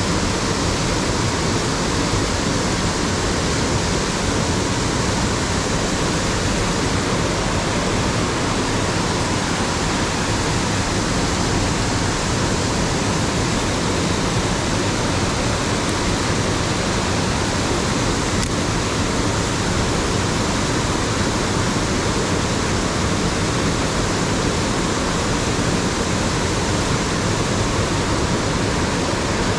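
Fast-flowing mountain stream rushing over rocks close by, a steady loud wash of water that does not change.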